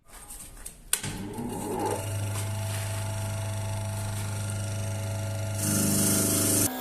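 An electric motor starts about a second in, whines up in pitch as it spins up, and settles into a steady hum. Near the end a louder hiss joins it for about a second, then the sound cuts off abruptly.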